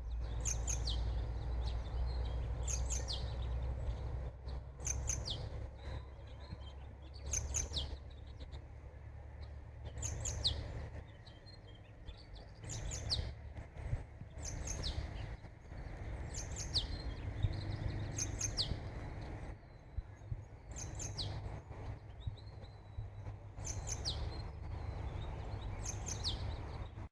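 A bird singing repeated short, high notes that slide downward, in clusters about every two seconds, over a steady low rumble.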